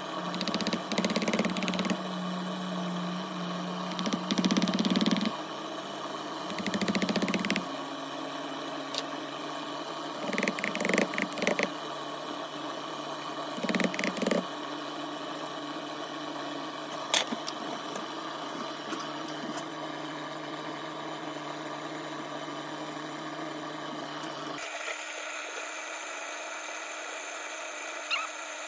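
A steady mechanical hum of a running motor, with several short bursts of tapping and scraping as patterns are pressed and knocked into moulding sand with a metal tool. The deeper part of the hum stops abruptly about three-quarters of the way through.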